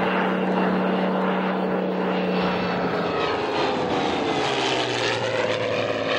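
Allison V-12 piston engine and propeller of a WWII Bell fighter in a low fly-past, a steady drone whose pitch drops as the aircraft passes close by about four seconds in.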